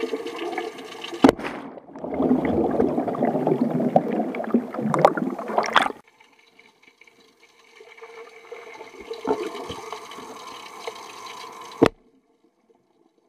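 Muffled underwater bubbling and churning of pool water, with a sharp knock about a second in and another near the end as an air cannon is fired under water, letting out a large burst of air.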